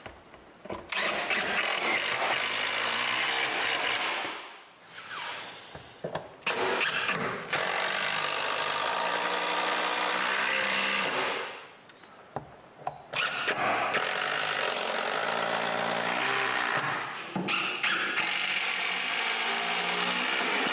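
Cordless drill/driver running in four long runs of about three to four seconds each, with a few short trigger blips between them, driving screws to fix the shelf support to the wall.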